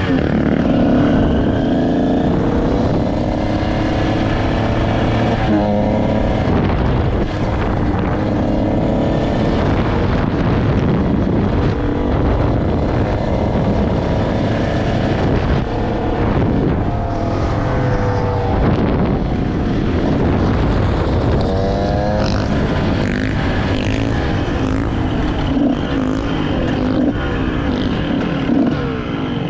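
Two-stroke engine being ridden hard, its pitch climbing in sweeps several times as it accelerates and shifts, over a steady low rumble.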